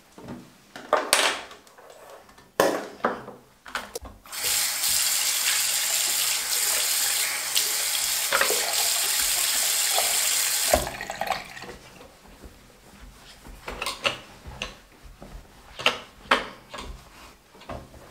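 A water tap running steadily into a sink for about six seconds, starting and stopping abruptly, to rinse after scrubbing. Scattered sharp knocks and clicks come before and after it.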